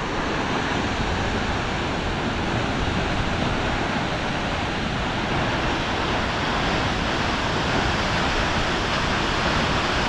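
Kegon Falls pouring: a steady, even rush of falling water that does not change in level.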